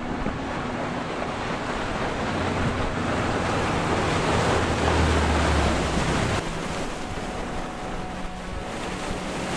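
Large sportfish yacht running fast past the jetty: rushing bow wave and wake spray over a low engine drone, building to its loudest as the boat passes about halfway through, then dropping off suddenly.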